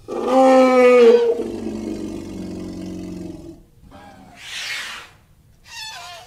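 African elephant calling: a loud call of about three and a half seconds, followed by two shorter, higher calls near the end, the last one falling in pitch.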